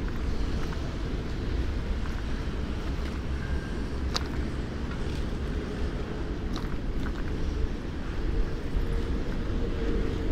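Steady low rumble of road and riding noise picked up by a bicycle-mounted camera on city streets. Two sharp clicks come about four seconds in and a couple of seconds later.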